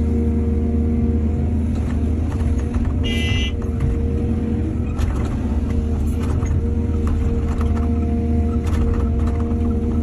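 Heavy diesel machinery engine running steadily with a deep, even hum. There is a brief high squeal about three seconds in and a few faint knocks later.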